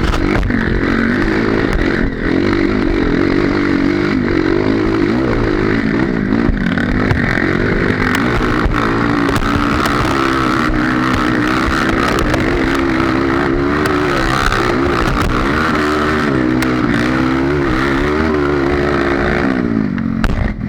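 Honda CRF230 dirt bike's single-cylinder four-stroke engine running under way, its pitch rising and falling again and again as the throttle opens and closes, then dropping away just before the end.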